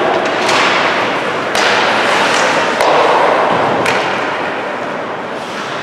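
Ice hockey game sounds: a steady noisy wash of play with several sharp stick-and-puck clacks, the loudest about one and a half and four seconds in.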